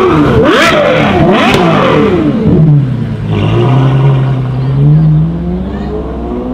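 Novitec Ferrari F12 N-Largo S's V12 revving in quick rising and falling blips, with several sharp exhaust cracks in the first two seconds. A lower, steadier engine note follows and climbs slowly in pitch.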